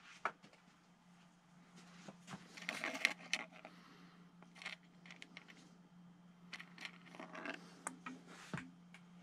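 Faint small metallic clicks and rattles of a thin steel flying-wire rod, tiny springs and needle-nose pliers being handled, thickest around three seconds in. A steady low hum runs underneath.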